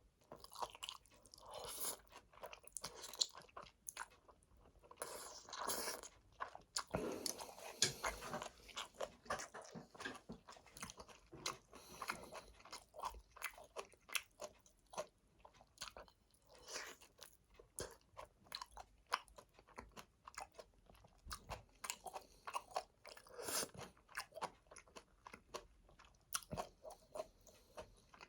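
Close-miked eating sounds of Chapagetti black-bean noodles: wet chewing and biting in quick, irregular clicks, with a denser, longer stretch of noise about five to eight seconds in.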